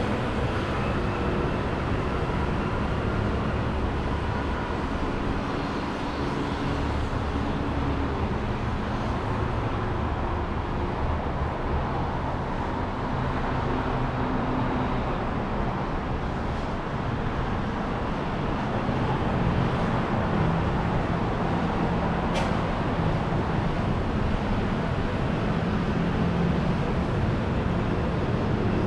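City street traffic: a steady mix of passing vehicle engines and tyre noise, a little louder in the last third, with one short sharp click about three-quarters of the way through.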